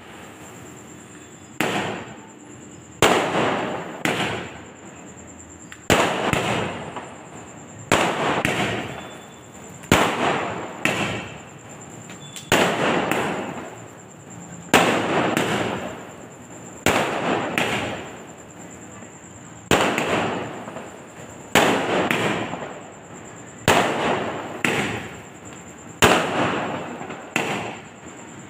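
Aerial fireworks bursting one after another, a sharp bang every one to two seconds, each trailing off over about a second as the sparks spread.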